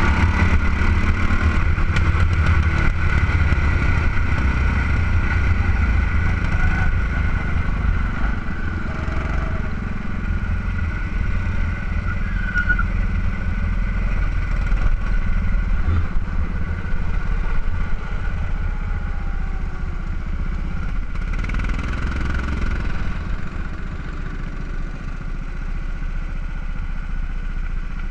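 Go-kart engine running close up under the driver, with wind and track noise, over a stretch of driving. It eases off and gets quieter in the second half as the kart slows.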